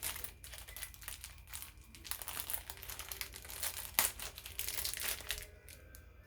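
Plastic packaging of cabinet hinge repair plates crinkling as it is handled and opened, in irregular crackles that die down about five seconds in.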